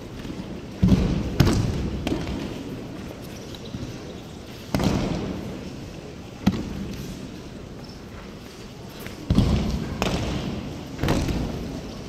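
Bodies thudding and slapping onto tatami mats as ukes take breakfalls from aikido throws, about seven irregularly spaced impacts, each dying away in a long echo.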